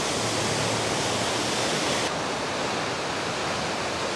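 Steady rush of a waterfall: an even, unbroken hiss of falling water that turns a little duller about halfway through.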